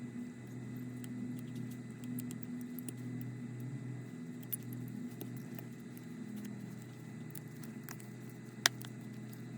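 Faint, scattered clicks and taps of small tools and parts being handled while an iPhone X is closed up, over a steady low hum, with one sharper click near the end.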